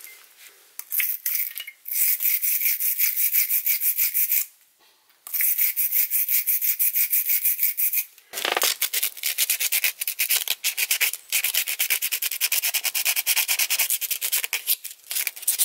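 Quick back-and-forth rasping strokes of abrasive scrubbing corrosion off copper battery cable lugs, finished with sandpaper. Short pauses come about four and a half and eight seconds in.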